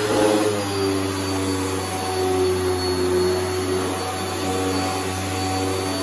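Airway Sanitizor Mark V canister vacuum running and cleaning carpet with its power nozzle. A steady motor drone shifts slightly in pitch about half a second in as the nozzle moves over the carpet.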